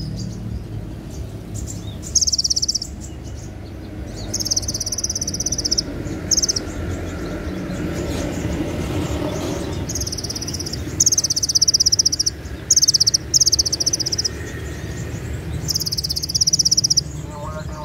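Purple-throated sunbird (kolibri ninja) singing in about eight short bursts of very high, rapid buzzy trills, each half a second to a second and a half long. These are the sharp 'cililin' trill phrases that songbird-contest keepers prize. A low, steady street hum runs underneath.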